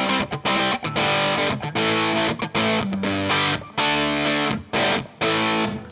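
Electric guitar on its bridge humbucker, driven through a Way Huge Red Llama overdrive set for heavy distortion, playing a riff of short, chopped chords with brief breaks. The last chord fades out near the end.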